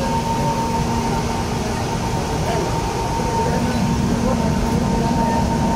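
Inside a moving electric commuter train car: the steady running noise of the train on the rails, with a constant high tone running through it.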